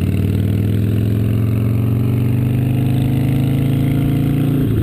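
Harley-Davidson 1450cc Twin Cam 88 V-twin with S&S 510 cams running under way, heard from on the bike. Its pitch rises slowly as it pulls, then drops suddenly near the end.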